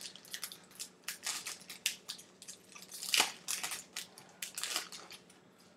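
Crinkling and rustling of a football trading-card pack wrapper being torn open and the cards handled, in irregular short crackles with one louder crackle about three seconds in.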